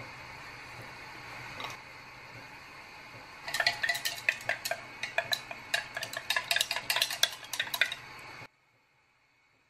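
A metal utensil clinking rapidly against a dish, about six ringing strikes a second, starting about three and a half seconds in and cutting off suddenly near the end, over a steady low hum.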